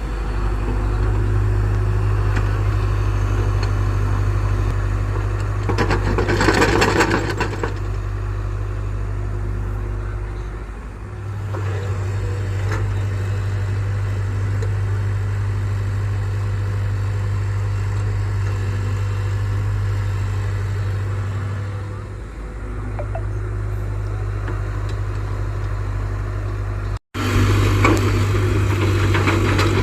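JCB NXT 205 excavator's diesel engine running steadily, dipping briefly twice, with a louder, noisier stretch about six seconds in.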